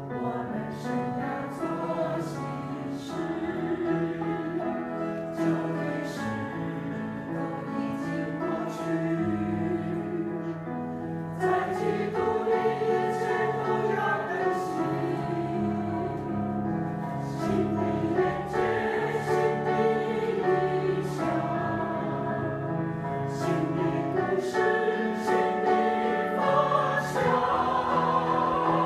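Choir singing a slow hymn-like piece with instrumental accompaniment, sustained chords that swell a little louder about halfway through.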